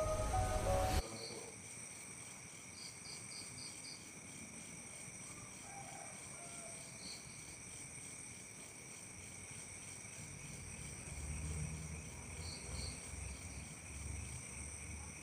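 Crickets and other insects trilling steadily in several high, continuous tones, with occasional short chirps. Music cuts off about a second in, and a soft low rumble comes and goes after about ten seconds.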